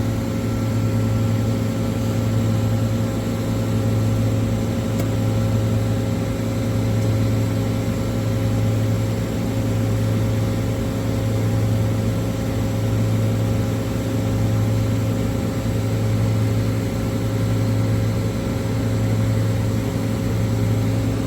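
Hydraulic pump unit of an Amada Vipros 255 CNC turret punch running at idle: a steady low hum with a few steady tones above it, swelling and fading gently every few seconds.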